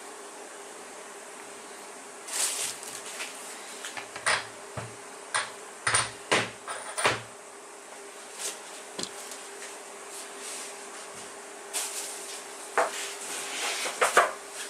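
Hand tools and metal motor parts knocking and clicking irregularly in two bursts of work, over a faint steady hum, as an electric skateboard hub motor is taken apart for a bearing change.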